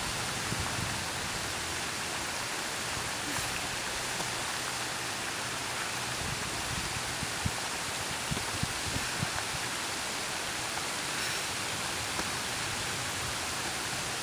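Steady outdoor hiss with a flickering low rumble, with a few faint thumps of burpees landing on a concrete path in the middle.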